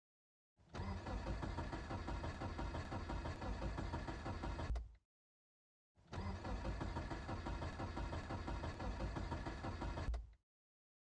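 Car engine cranking on its starter without catching, in two separate attempts of about four seconds each with a pulsing, uneven rhythm, each stopping abruptly: a cold engine that cranks but won't start.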